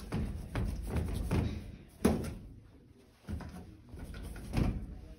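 Suspended ceiling tiles being pushed up and shifted in their metal grid: a series of knocks and light rattles, the loudest thump about two seconds in.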